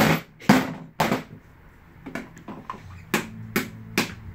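A hammer knocks on a scooter wheel's hub, driving a bearing into place. It starts with three sharp knocks about two a second, then a few lighter taps, then three more knocks at the same pace.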